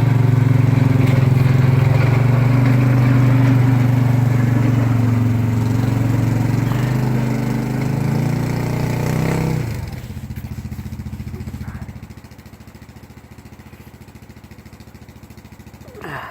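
Small engine running steadily and loud for about nine seconds, then dropping sharply in level about ten seconds in and fading further a couple of seconds later as the machine moves away.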